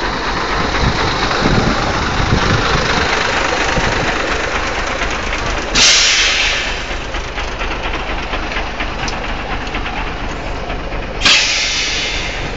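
Engine of a yellow Renault heavy machine running steadily, with two short, loud hisses about five seconds apart.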